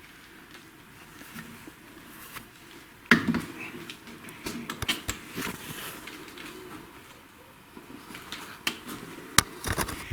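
Scattered knocks and clinks of tools and metal engine parts being handled, with a sharp knock about three seconds in and another near the end.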